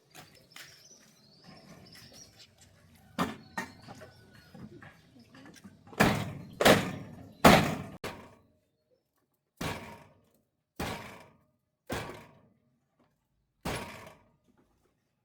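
A series of heavy knocks, about eight in all: a loud cluster of three past the middle, then four single blows about a second apart. Faint bird chirps sound in the first few seconds.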